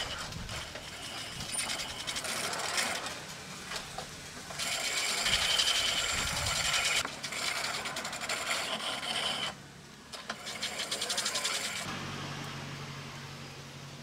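Small carved wooden piece being ground against a hand-cranked grinding wheel: a gritty, whirring grind that comes in spells and breaks off briefly about nine and a half seconds in. Near the end the grinding stops and a low, steady hum fades away.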